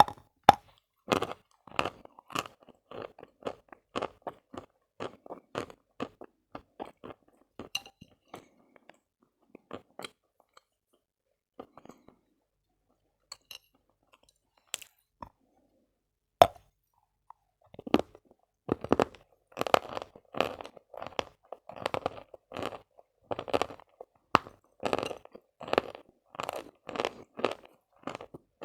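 Close-up biting and chewing of lumps of Khrapovsky edible chalk, crisp crunches coming about twice a second. The crunching thins out to a few quiet ones in the middle. A sharp snap of a bite comes a little past halfway, then the chewing is dense and louder.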